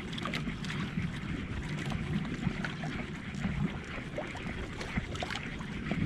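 Small waves slapping and splashing irregularly against the hull and bamboo outrigger float of a drifting jukung outrigger canoe, with wind buffeting the microphone.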